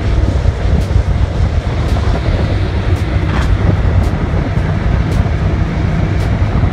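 Speedboat running at speed: a steady engine drone under water rushing past the hull, with wind buffeting the microphone.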